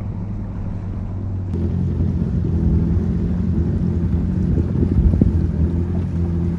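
Jet ski engines running at low speed on the water: a steady low drone with wind on the microphone.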